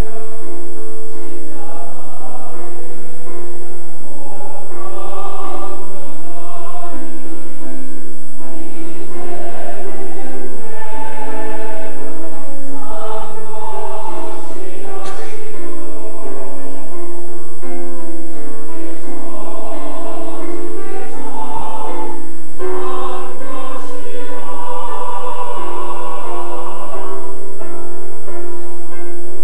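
Mixed church choir of men and women singing a sacred praise anthem in parts, accompanied by a grand piano.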